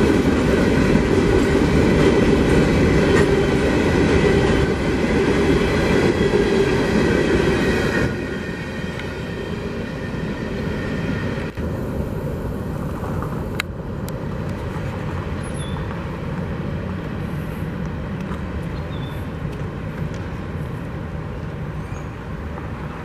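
Freight train's open hopper cars rolling past on steel wheels, a loud rumble with a high wheel squeal over it. About eight seconds in the last car passes, and the sound drops to a fading rumble as the train moves away.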